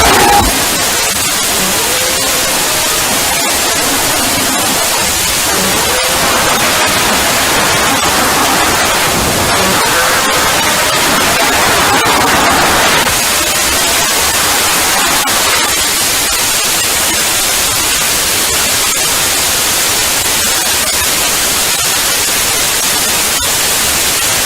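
Loud, harsh static-like hiss from a distorted sound effect, steady throughout, with faint wavering tones buried in the noise during roughly the first half.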